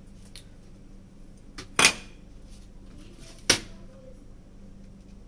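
Two sharp knocks about a second and a half apart as an LED tube light batten and its USB cable are handled, over low room tone.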